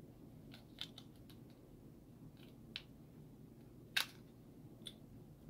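Faint plastic clicks and taps from handling an old Samsung cell phone and its battery while trying to fit the battery, with one sharper click about four seconds in.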